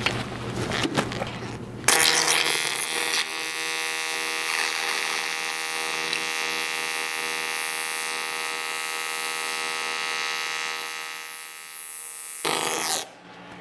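Twin carbon arc welding arc running on AC at 120 hertz, soft waveform, about 70 amps: a steady electrical buzz-hum that starts about two seconds in and cuts off about a second before the end. A different, noisier sound fills the first two seconds.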